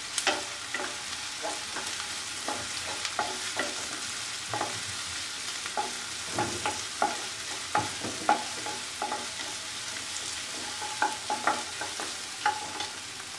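Chopped onions, ginger, green chili and mint frying in oil in a non-stick pan: a steady sizzle, with the spatula scraping and tapping against the pan many times as the mixture is stirred.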